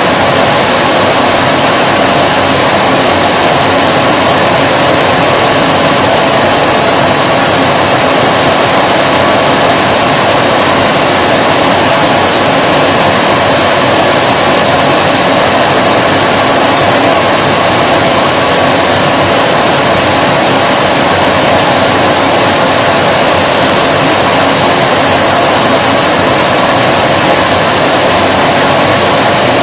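Vacuum cleaner motor running continuously: a loud, steady rush of air with a faint constant whine and no change in pitch or level.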